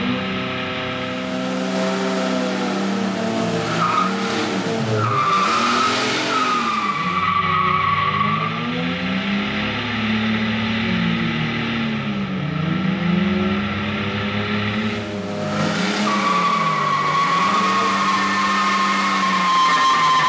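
Drift-car engines revving up and down in repeated surges during stationary burnouts, with the rear tyres squealing as they spin, in two long stretches: from about four to nine seconds in and again from about sixteen seconds on.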